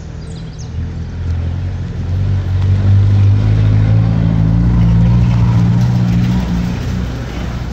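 Motor vehicle engine going by close at hand: a deep, steady hum that builds over the first few seconds, holds through the middle, and fades near the end.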